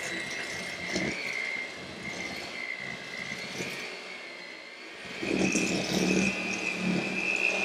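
Electric hand mixer beating cookie dough in a steel bowl: a steady motor whine that steps up in pitch about five seconds in, as the mixing gets louder.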